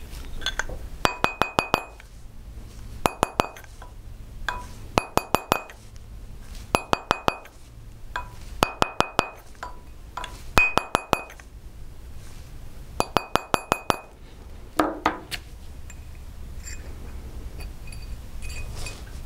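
Plastic mallet lightly tapping an annealed sterling silver wire ring on a steel ring mandrel to shape it true round. The taps come in quick runs of four to six, about every two seconds, each with a bright metallic ring. They stop about two-thirds of the way through, leaving only soft handling sounds.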